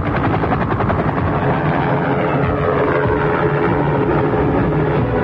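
Helicopter rotor chopping in a fast, even beat over vehicle noise, with a falling tone around the middle.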